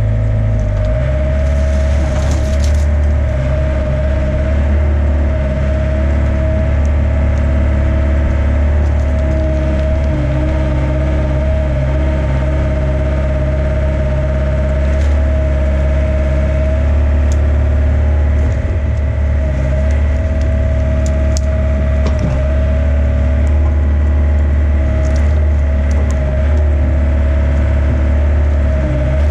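Mini excavator's diesel engine running steadily under load while the bucket digs, with a steady higher tone over the engine hum. Short clicks and scrapes come through as the bucket cuts into the soil and stones, with a brief scraping patch about two seconds in.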